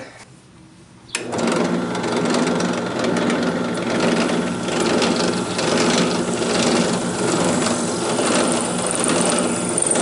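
Benchtop drill press switched on about a second in and running steadily as its bit is fed down through a cedar board to drill a hole.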